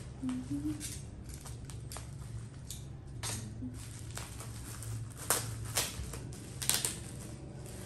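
Bubble wrap being peeled off a phone box by hand: plastic rustling and crinkling, with a few louder crackles in the second half, over a steady low hum.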